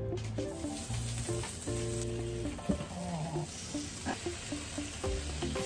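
Sliced pork belly sizzling on a hot grill plate as the slices are laid on it, the sizzle growing stronger about halfway through.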